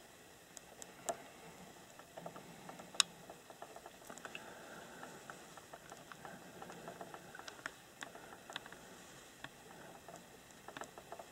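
Faint, irregular small clicks and light rustling, with one sharper tick about three seconds in.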